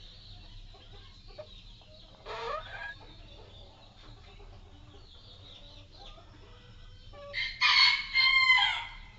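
Chickens clucking and calling softly, with a short rising call about two seconds in. Near the end a rooster crows loudly for about a second and a half.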